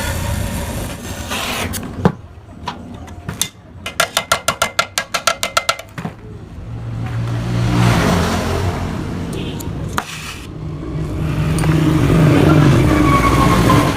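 Yamaha RX-King two-stroke motorcycle engine running: a few seconds in it pulses with quick, even pops at low revs, then revs up and runs louder at higher revs near the end.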